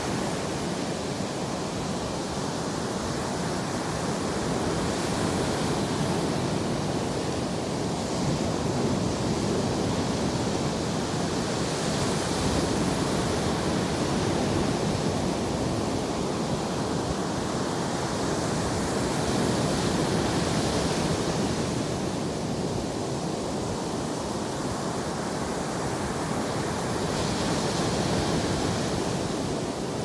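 Atlantic Ocean surf on a sandy beach: a steady rushing wash, with a breaking wave swelling up about every seven or eight seconds.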